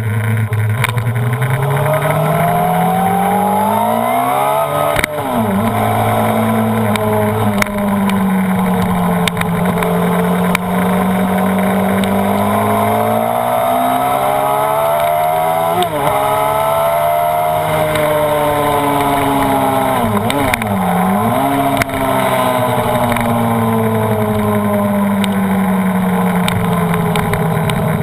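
Honda CBR929RR's inline-four engine under way at speed, its pitch climbing and falling as it accelerates and backs off, with sudden drops in pitch at gear changes about five and sixteen seconds in.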